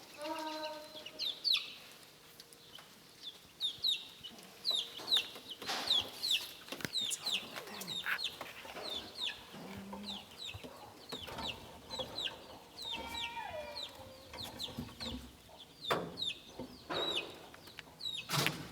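Chickens clucking, with short, high, falling chirps several times a second and a few lower calls, broken by a few sharp knocks.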